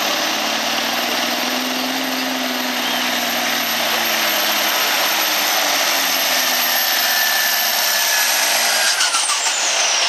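Altered semi truck's diesel engine running hard under full load as it drags a weight sled, a loud dense engine noise whose pitch rises and then sags. In the last second or two a whine falls in pitch as the engine comes off power at the end of the pull.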